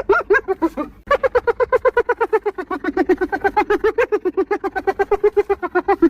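Hyena laughing: a rapid run of short, pitched yelping notes, about nine a second, with a brief break about a second in.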